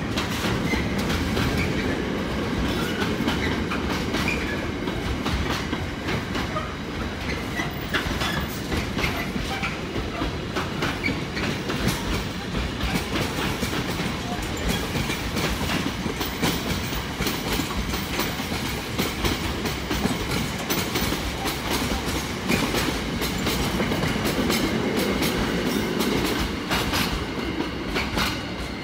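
Container freight train's loaded flat wagons passing, a steady rumble from the wheels with many sharp clicks throughout; the sound eases a little near the end as the last wagons go by.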